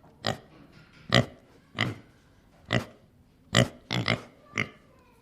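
Domestic pig grunting: a string of about eight short grunts at irregular intervals, two of them close together near the end.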